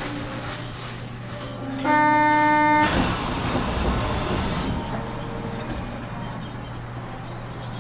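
Osaka Metro 200 series New Tram car standing at a station over a steady low hum; about two seconds in a loud buzzer-like tone sounds for about a second, followed at once by a rushing noise that fades over about two seconds.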